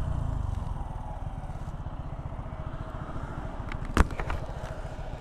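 Suzuki Gixxer SF FI ABS single-cylinder motorcycle engine running at low revs as the bike slows and rolls off the road. There is a sharp click about four seconds in, with a few lighter clicks around it.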